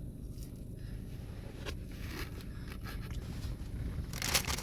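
Faint clicks and crunching of crispy fries being eaten over a low steady hum, then about four seconds in a louder crackling rustle of paper or cardboard food packaging being handled.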